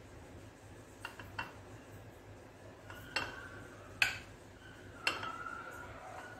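Besan laddoos being set one by one into a cut-glass serving bowl: five light knocks against the glass, the later ones with a short ring after them, the loudest about four seconds in.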